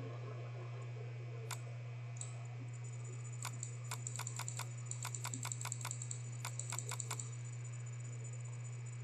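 Clicking of computer keys or buttons: a single click about 1.5 s in, then a quick run of about eighteen clicks, four to five a second, between about 3.5 and 7 s. A steady low hum runs underneath.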